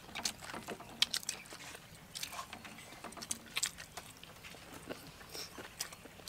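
Close-up eating sounds: chewing and biting into fried chicken and slurping chili noodles, an irregular string of wet smacks and sharp clicks.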